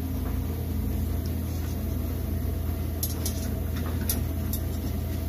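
Steady low machine hum in a workshop, with a few light clicks of metal and rubber hardware being handled from about three seconds in.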